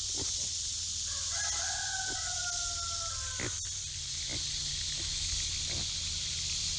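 A rooster crows once, one drawn-out call that falls slightly in pitch, starting about a second in. Under it runs a steady high hiss, with a few light knocks.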